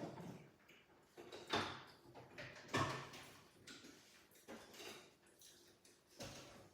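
Eating sounds close to the microphone: irregular short smacks and crunches of chewing and handling food, roughly one a second.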